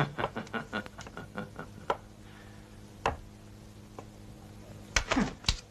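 Film fight-scene sound effects: a quick run of light taps and clicks in the first two seconds, one sharp knock about three seconds in, then a few louder hits in quick succession near the end, over a faint low hum.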